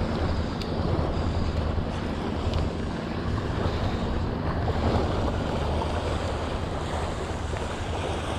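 Wind buffeting the microphone with a steady low rumble, over small waves washing against the shore.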